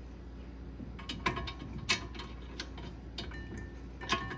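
Irregular light metallic clicks and clinks, each with a short ring, as the anti-seize-coated brake caliper bracket bolts are started by hand through the bracket; they are going in easily.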